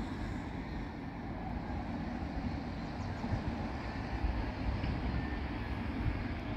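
Steady, uneven low outdoor rumble with no distinct events.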